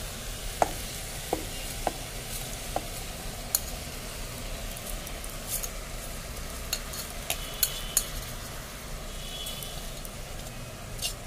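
Soaked rice and vegetables frying in ghee in an aluminium pressure cooker, sizzling steadily, with scattered light clicks and knocks as the rice goes in.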